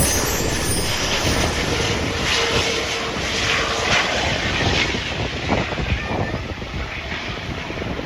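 Jet airliner passing, the rumble of an ANA Airbus A380-841's four Rolls-Royce Trent 970 engines fading steadily as it moves away.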